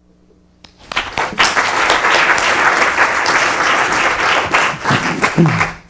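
Audience applauding: the clapping breaks out about a second in, holds steady, and dies away near the end.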